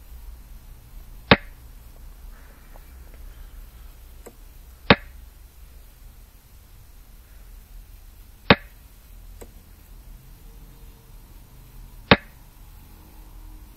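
Xiangqi replay software's move sound: four sharp clacks of a piece being set down, one for each move, evenly spaced about three and a half seconds apart, with fainter short ticks between them.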